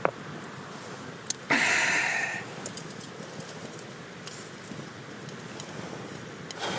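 Campfire crackling with scattered faint ticks, and a brief loud hiss about a second and a half in that lasts under a second.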